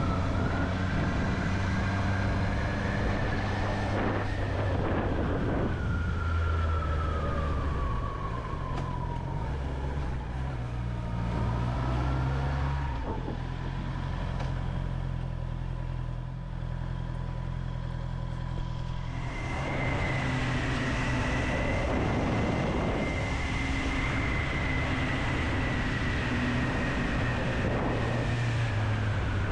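Honda CB650R's inline-four engine running under way, its revs rising and falling with several gear changes, over a steady rush of wind noise. The higher sound drops away for a few seconds in the middle, then comes back.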